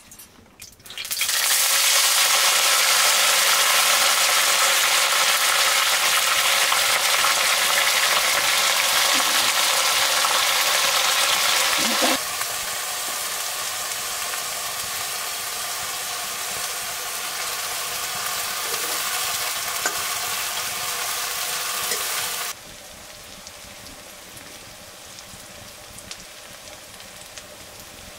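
Food frying in hot oil in a pan, a loud steady sizzle that starts suddenly about a second in. It drops sharply in level twice, at about twelve seconds and again near the end, and keeps on more quietly.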